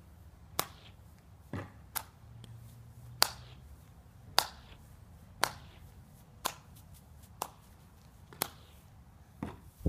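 Golf club striking a row of golf balls one after another: about ten sharp clicks, roughly one a second.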